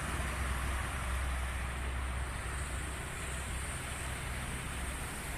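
Steady outdoor background rumble and hiss: wind buffeting the microphone and the low drone of distant road traffic, with no distinct events.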